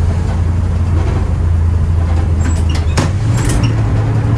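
The engine of a 1955 Gillig school bus running as the bus drives, heard from inside the cabin: a steady low drone that steps up in pitch about three seconds in as the engine speeds up. A few sharp rattles and clicks come just before that.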